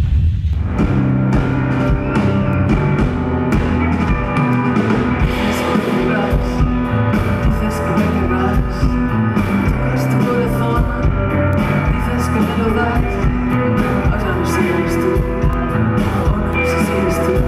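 Live rock band music on stage, with keyboards, starting about half a second in.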